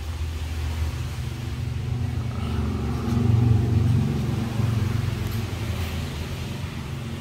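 A motor vehicle's engine running as a low rumble, growing louder about three to four seconds in and then easing off.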